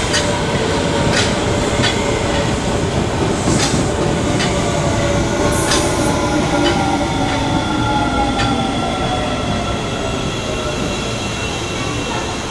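Osaka Municipal Subway 20 series train running past and moving away: wheels clicking over rail joints under a steady rumble, with a whine that slides down in pitch as the train recedes, the sound easing slightly near the end.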